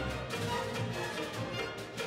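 Symphony orchestra playing a concert performance, with the string section bowing.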